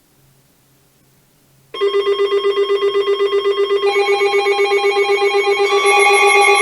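Weather radios sounding their alert alarms: about two seconds in, a loud, rapidly pulsing alarm tone starts suddenly, and further alarm tones join about four and about six seconds in as more radios go off, the alarm growing louder each time. The alarms signal an incoming weather alert.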